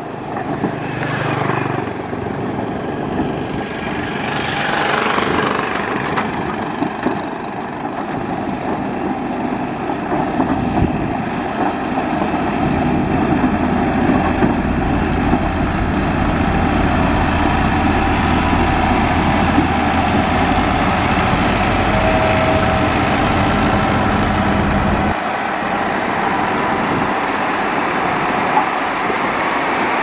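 Motor grader's diesel engine running steadily under load, with a low hum that drops away suddenly near the end.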